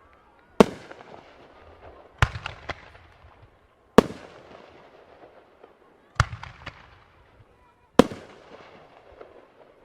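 Aerial firework shells bursting: five loud bangs about every two seconds, each trailing off in a rolling echo, with a few quick follow-up pops after the second and fourth.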